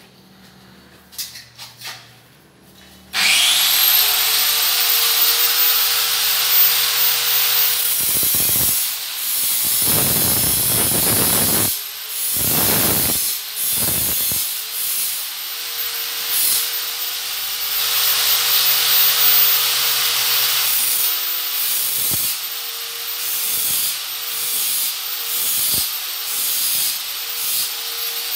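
Handheld angle grinder switched on about three seconds in. Its whine rises as it spins up, then it runs at speed. A strip of tile edge trim is ground against the disc, and the grinding noise swells and eases as the strip is pressed on and lifted off.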